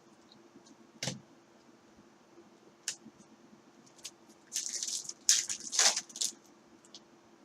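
Trading cards and their packaging being handled: a single click about a second in, a few light ticks, then a short burst of rustling and crinkling past the middle.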